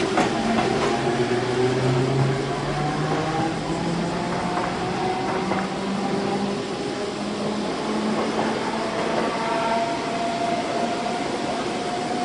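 Okayama Electric Railway streetcar running on its street track: a steady rumble with a few held low tones that drift slightly in pitch, and a couple of faint clicks near the start.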